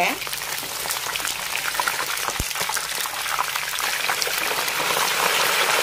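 Whole red tilapia shallow-frying in hot oil in a wok: a steady crackling sizzle full of fine pops, growing louder near the end once the fish is turned over with wooden spatulas. A single low knock comes about halfway through.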